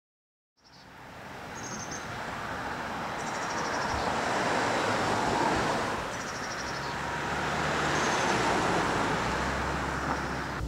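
A car driving along a street: a steady rush of engine and road noise that swells and eases, with a low engine hum building near the end.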